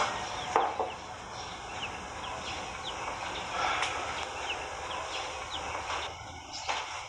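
Birds chirping: a string of short, high, falling chirps, about three a second, over a steady hiss, with a single sharp knock about half a second in.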